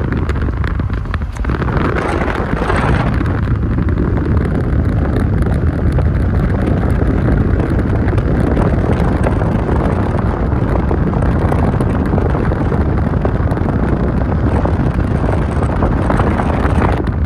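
Loud, steady rush of wind on the microphone mixed with tyre and road noise from a car driving along a highway.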